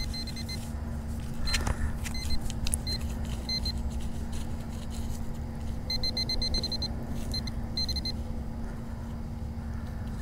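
Metal detector beeping in short high-pitched chirps at irregular intervals, with a quick run of beeps about six seconds in, as it sounds off over a buried metal target, a washer read at 50. A steady low hum and rumble lies underneath, and a single knock comes about a second and a half in.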